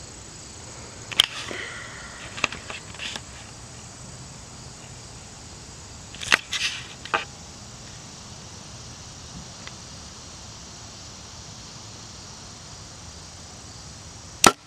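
Compound bow being drawn and held at full draw, with a few small clicks and rattles early on, then a long steady hold. Near the end a handheld release aid lets the shot go as a surprise release, and the bowstring gives one sharp, loud snap.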